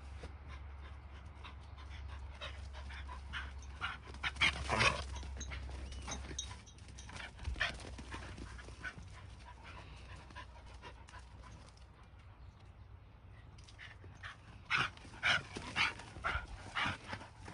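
A Shiba Inu and a mixed-breed dog play-fighting, giving short vocal bursts in two clusters, about four seconds in and again near the end, with panting and scuffling between them.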